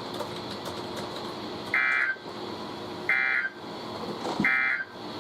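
Three short bursts of digital warbling data tones, the Emergency Alert System end-of-message code, broadcast over NOAA Weather Radio about a second apart over steady radio hiss. They signal that the severe thunderstorm warning just read has ended.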